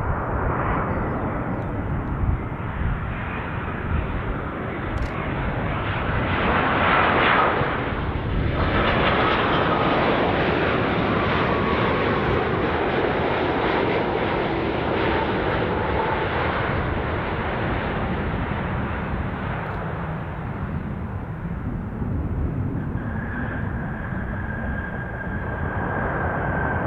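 Boeing 787 Dreamliner landing. The jet noise builds to its loudest about seven seconds in as it passes, with an engine whine falling in pitch afterwards. Steady jet noise continues as it rolls out on the runway, joined near the end by a steady high whine.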